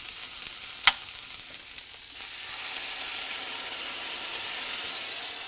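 Asparagus, onion and tomato paste sizzling in a hot stainless steel sauté pan, with one sharp tap of the spatula against the pan about a second in. About two seconds in the sizzle swells and grows hissier as water is poured into the hot pan.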